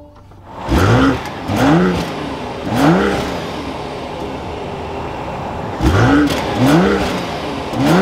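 2024 BMW X5 xDrive40i's 3.0-litre turbocharged inline-six heard at the exhaust as it starts. It is blipped three times, settles to a steady idle for a couple of seconds, then is blipped three more times, each rev rising and falling quickly.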